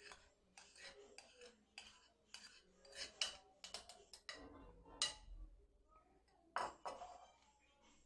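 Faint, irregular clinks and knocks of kitchen utensils and dishes being handled on a counter while milkshake ingredients are added to a blender.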